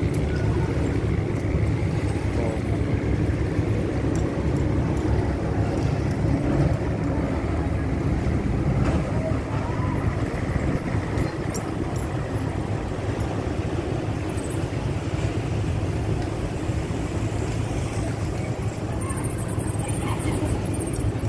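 Steady low rumble of distant engines.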